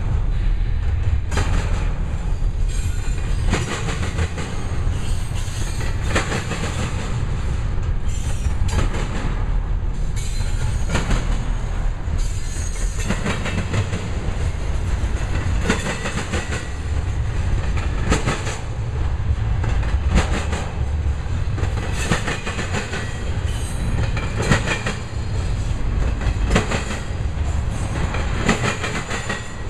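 Union Pacific intermodal freight train's double-stack container well cars and trailer-carrying flatcars rolling past: a heavy low rumble with repeated clickety-clack of wheels over rail joints.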